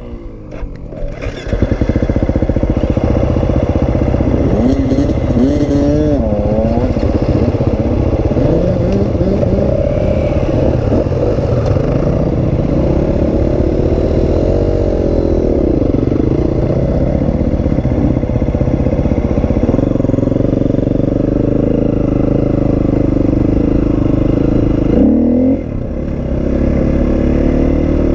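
Husqvarna FE350 four-stroke single-cylinder dirt bike engine pulling away after a second or so and running hard along the trail, the engine note rising and falling with the throttle. Near the end the engine sound drops briefly, then picks up again.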